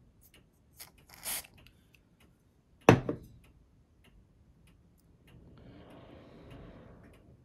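Two short sprays of CA glue accelerator (kicker) about a second in, then a single sharp click near three seconds and a soft hiss near the end, over faint steady ticking.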